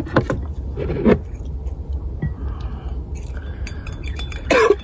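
Eating sounds: chewing with small clinks of a cup and tableware, then a short vocal sound from the eater near the end.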